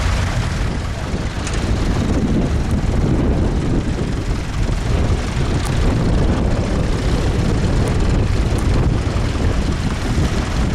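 Vintage tractor engine running steadily with a deep, rapid chug.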